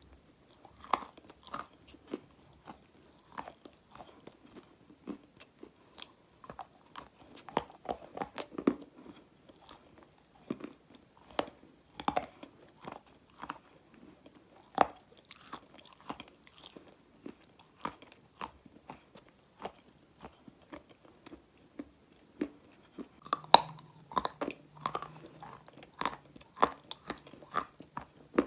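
Dry black edible clay crunching and crackling as it is bitten and chewed, close up: irregular sharp crunches a few times a second, coming thicker and louder near the end.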